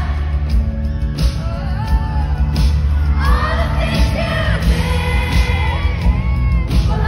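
Live pop concert music: a female singer's amplified vocal over the band, with strong bass and the crowd's voices mixed in.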